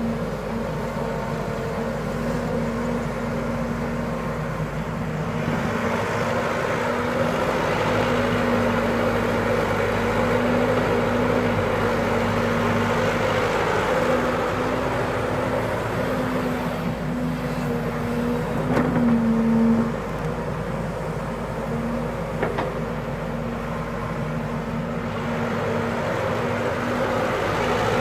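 Caterpillar hydraulic excavator's diesel engine running steadily while the machine digs and piles soil. The engine grows louder through the middle, peaks, and drops back sharply about two-thirds of the way through.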